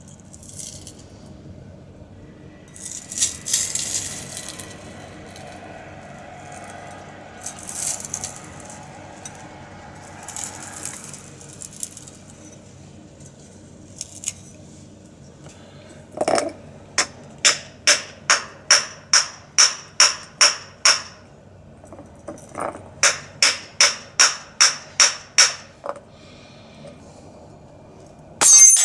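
Sharp, ringing taps on a drinking glass caked with hardened burnt marshmallow, in two runs of about a dozen taps at two to four a second, starting about halfway in. A few short scraping sounds come before them, and a loud glassy crash comes at the very end.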